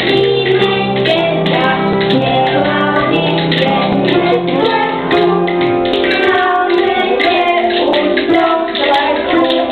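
A woman and young children singing a song together to instrumental accompaniment, with light sharp ticks keeping the beat.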